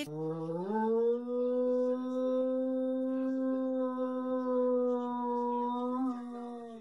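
A black dog howling: one long note that slides up in pitch in the first second, then holds steady for about six seconds before fading near the end.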